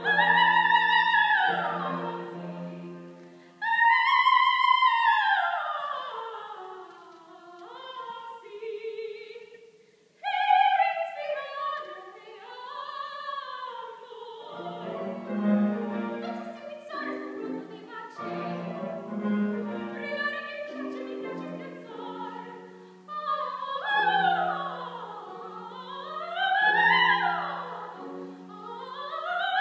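A female voice singing an operatic aria in classical style, with vibrato and runs that sweep widely up and down in pitch, over sustained lower notes of accompaniment.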